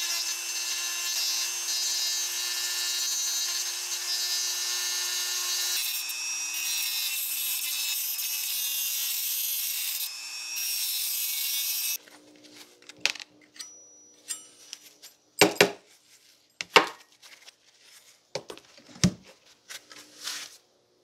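Handheld rotary tool with a small bit running with a steady high-pitched whine as it drills out the hinge rivets of an aluminum grapefruit corer, its pitch dipping a little about six seconds in as the bit bites. About twelve seconds in the tool stops, followed by several sharp clicks and clacks of the loose metal parts being handled and set down.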